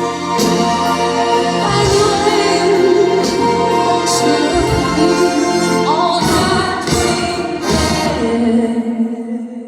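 Live band music with sung vocals, sustained chords and regular drum hits, near the close of a pop ballad; the music thins out and grows quieter shortly before the end.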